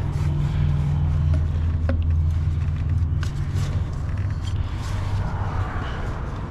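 Steady low hum in the background with scattered light clicks and knocks from the radiator coolant hoses and their fittings being handled and pushed into place.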